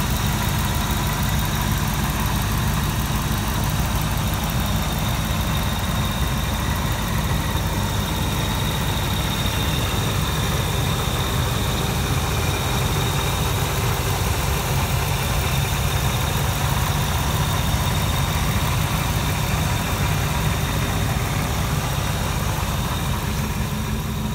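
2003 Ford Lightning's supercharged 5.4-litre V8 idling steadily, with a thin steady high whine above the low engine note.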